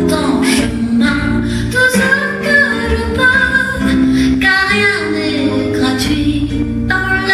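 Music: a woman's voice singing long, held notes over instrumental accompaniment with a low bass.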